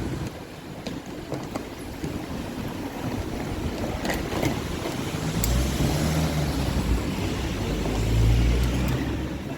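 Vehicle traffic: a steady hiss of passing road noise with a low engine rumble that swells about halfway through and again near the end, as vehicles go by.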